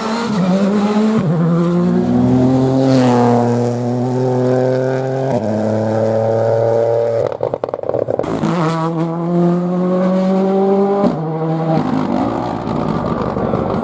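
Rally car engine running hard through the gears, with several quick gear changes. About halfway through it lifts off with a few seconds of crackling pops from the exhaust, then accelerates again.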